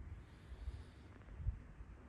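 Quiet lull between a sleeping pug's snores: only a faint low rumble, with a soft bump about one and a half seconds in.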